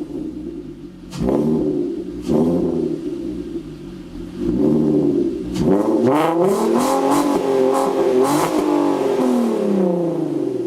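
Volkswagen Golf R32's 3.2-litre VR6 engine being revved: two quick blips about a second apart, a smaller one, then about halfway a long rev held high with several surges that winds slowly back down toward idle near the end.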